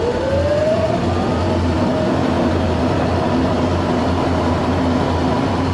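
A woodworking machine's electric motor winding up to speed: its whine rises through the first second, then holds a steady pitch over a low hum.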